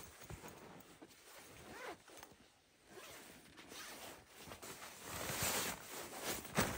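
Zipper being run open on a fabric sleeping-bag carry sack, in short rasping strokes, then nylon rustling as the sleeping bag is pulled out, louder near the end.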